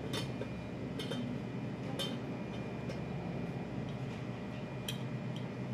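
Light clinks and ticks of a stainless-rimmed pot lid and its knob bolt being handled as the knob is fitted: a few sharp clicks about a second apart, and one more near the end.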